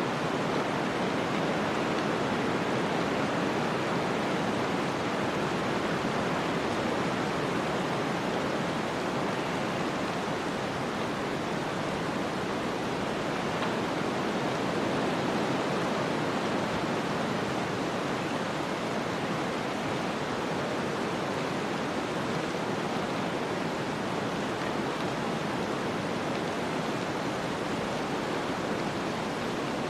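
Snowstorm ambience: a steady, even rushing noise of storm wind and blowing snow, unchanging throughout.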